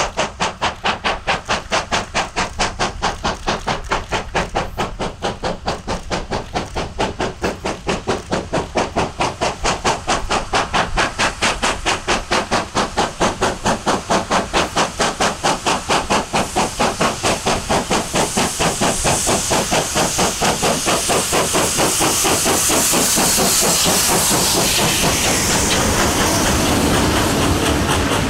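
South African Railways Class 25NC 4-8-4 steam locomotive working hard with a heavy freight train, its exhaust beats fast and even and growing louder as it approaches. About two-thirds of the way through, the beats give way to a steady hiss and rumble as the engine passes and the wagons roll by.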